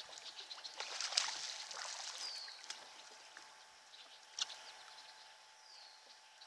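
Water splashing as a hooked bass thrashes at the surface beside the boat while it is reeled in, busiest in the first two seconds and then dying down. A bird gives a short falling call twice, and there is one sharp knock about four seconds in.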